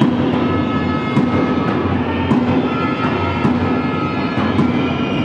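A supporters' drum beating a steady rhythm, about two beats a second, over the loud din of a crowd in a sports hall.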